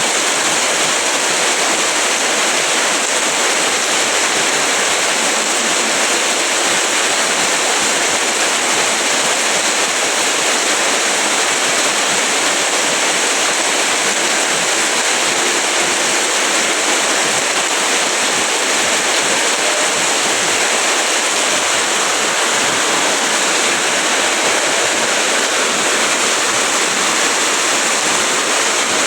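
Heavy rain falling steadily: a dense, even hiss with no breaks and no thunder.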